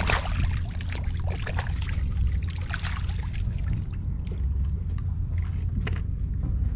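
Water splashing and trickling as hands work among fish in a floating keep net at the waterline, busiest in the first few seconds. A steady low rumble runs underneath.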